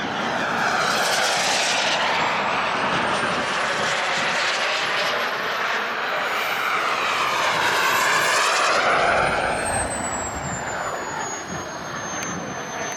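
Turbine-powered Skymaster A-4 Skyhawk model jet flying past overhead: a steady rush of jet noise that swells and phases as it passes. Over it runs a thin, high turbine whine that climbs in pitch, then falls away. It is loudest about eight to nine seconds in.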